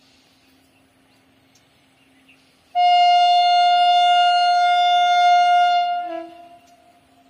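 Railway locomotive horn sounding one long steady blast of about three seconds. It starts abruptly and fades out quickly when it stops.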